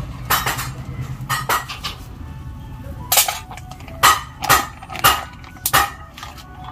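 Background music with a beat of sharp percussive hits, about two a second, that grows stronger and more regular after the first few seconds.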